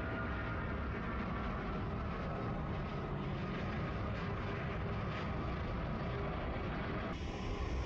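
Jet engines of a Boeing 777 climbing out after takeoff: a steady rumble with faint whining tones that slowly fall in pitch as it flies away. Near the end the sound changes abruptly to a different jet noise.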